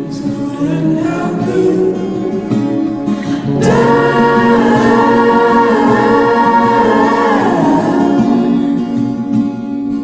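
Background music with singing voices, swelling louder about three and a half seconds in and easing off near the end.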